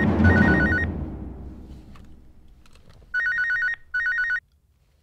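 Mobile phone ringing with a fast warbling two-tone trill in double bursts, the old telephone double ring: one pair at the start and another about three seconds in. Under the first ring a loud low boom fades away over a couple of seconds.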